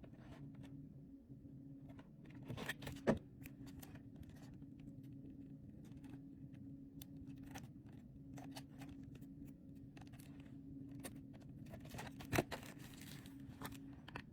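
Mylar book-jacket film crinkling and rustling as it is handled, with sharp louder crackles about three seconds in and again near the end, over a steady low hum.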